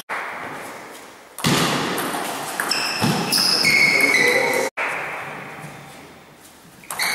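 Table tennis play in a hall: sudden knocks of the ball and bats that fade slowly, with short high squeaks in between.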